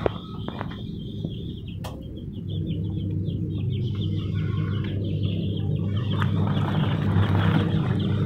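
Birds chirping and chattering over a steady low rumble, building up from a few seconds in. A few sharp knocks come in the first couple of seconds.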